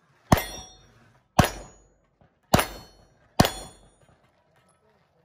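Four handgun shots about a second apart, each followed by the clang of a steel target plate ringing as it is hit.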